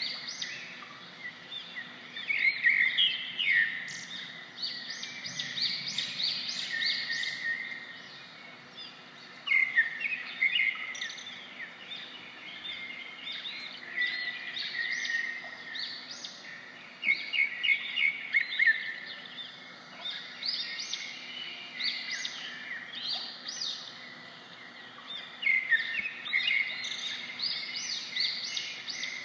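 Birds chirping and singing: quick runs of short high notes that come and go every few seconds over a faint steady outdoor background.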